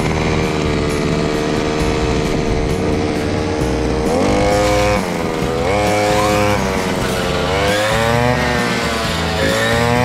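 An engine running steadily, then its pitch rising and falling repeatedly from about four seconds in as the revs change.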